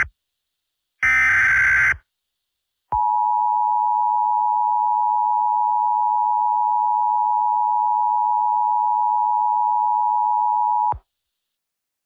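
Emergency Alert System broadcast tones: the last one-second burst of the SAME digital header's screechy data tones, then after a second of silence the steady two-tone EAS attention signal (853 and 960 Hz), held for about eight seconds before it cuts off sharply.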